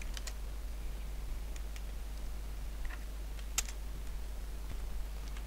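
Scattered keystrokes on a computer keyboard, a few isolated clicks with the sharpest about three and a half seconds in, over a steady low hum.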